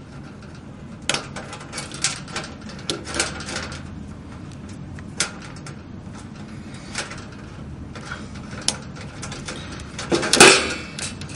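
Small clicks and rattles of hands handling electrical wires and a terminal block inside a sheet-metal fluorescent light fitting, with a louder clatter about ten seconds in.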